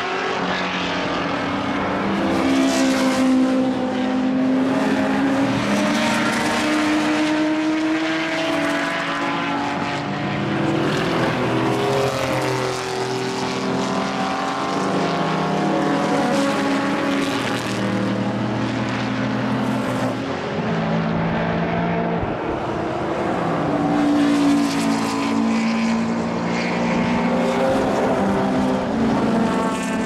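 Historic racing cars running through a bend one after another, several engines heard at once, their pitch climbing under acceleration and dropping at the gear changes.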